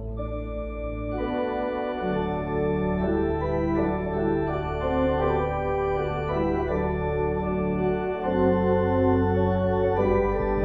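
Organ music: slow, sustained chords changing about once a second over held low bass notes. The deepest bass drops out briefly about one and a half seconds in and comes back fuller near the end.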